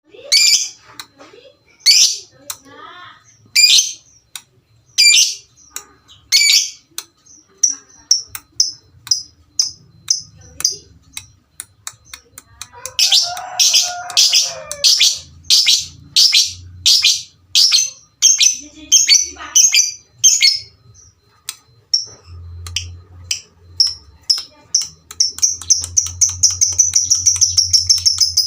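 Lovebird calling: loud, sharp high chirps spaced about a second and a half apart, then quicker chirps and a busy stretch of chatter midway. Near the end the chirps speed up into a rapid, almost unbroken trill.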